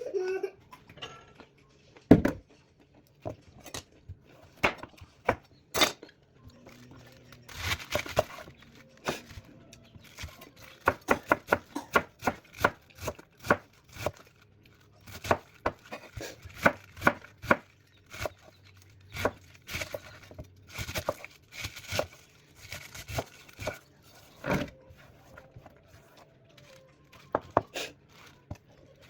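Kitchen knife chopping on a cutting board: sharp knocks in irregular runs, some quick runs of several strokes a second, with pauses between.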